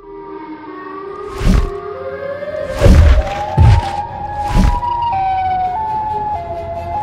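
Cartoon siren wail from Siren Head's loudspeaker head: it glides slowly upward in pitch, then holds and steps up and down between a few notes. Four heavy thudding stomps fall in the first five seconds.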